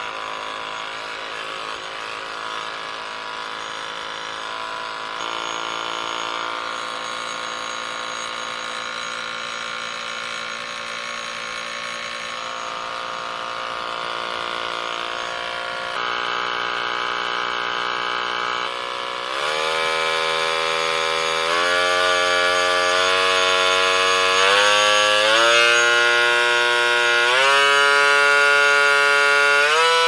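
Parkside PAMFW 12 D4 12V cordless oscillating multi-tool running with no load, a steady motor whine. In the second half the pitch steps up several times, roughly every two seconds, as the speed dial is turned up from 1 toward 5.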